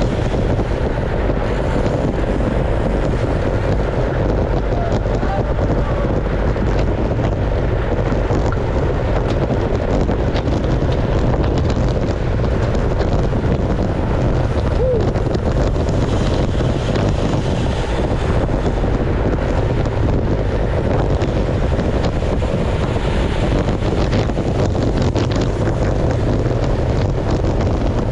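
Steady wind rumble buffeting the microphone of a bicycle-mounted camera riding at race speed in a bunch of road cyclists.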